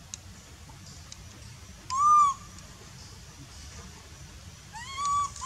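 Macaque giving two clear, high coo calls: a short one that rises and falls about two seconds in, then a longer one near the end that rises and then holds its pitch.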